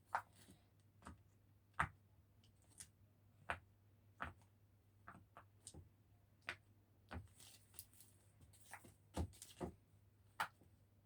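A silicone pop-it fidget toy being pressed, its bubbles popping with a string of faint, short clicks at an irregular pace of one or two a second.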